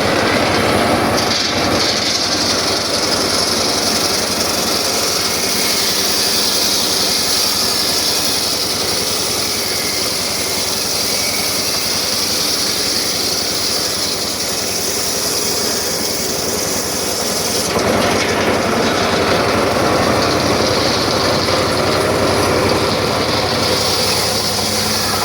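Circular saw running steadily and cutting through very hard sogho wood, with a high hiss from the blade in the cut from about a second in until about 18 s, after which the saw runs on without the hiss.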